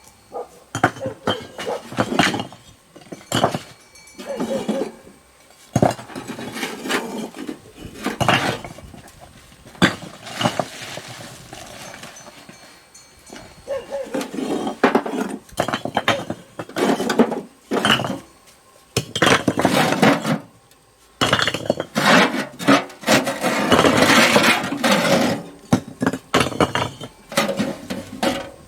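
Irregular clattering and knocking of hard objects, with longer stretches of scraping in between.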